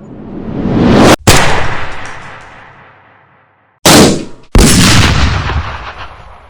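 Heavy gunshot sound effects with long echoing tails. A swell rises into a sharp shot just over a second in, then two more shots come about four seconds in, under a second apart, each fading out over a second or two.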